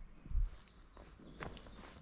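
Footsteps on the forest floor, with a low dull bump shortly after the start and a short sharp crack about a second and a half in.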